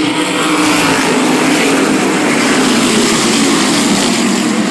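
A field of 600-horsepower modified race cars passing at speed, many engines running hard at once in a loud, dense, steady din.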